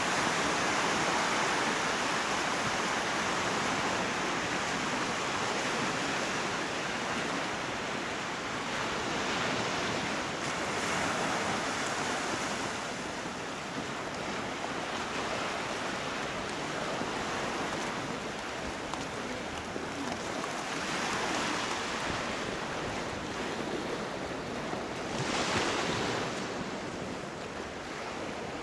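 Surf washing on a shore: a steady rush of water that swells and fades in slow surges, with a brief louder surge near the end.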